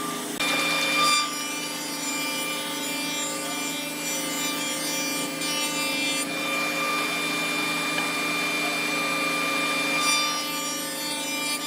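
A woodworking machine running steadily, with a constant motor hum and a rasping, rubbing sound of wood being cut or worked.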